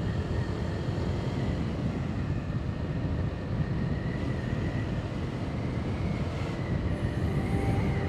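Honda PCX 160 scooter riding at road speed: a steady rush of wind and engine noise at the helmet or handlebar camera.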